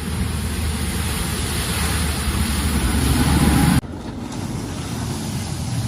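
A vehicle crossing a flooded ford: its engine running under a rush and splash of water. The sound builds in loudness, then drops off abruptly nearly four seconds in, with quieter running water and engine noise after.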